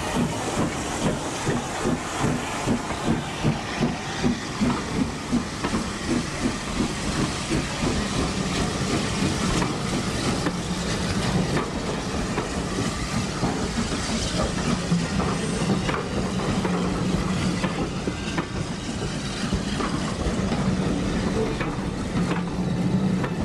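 Steam locomotive 'Sir Robert Peel' pulling away with its train: sharp exhaust beats about three a second over a hiss of steam, merging after about six seconds into a steady rumble and hiss as the coaches roll past.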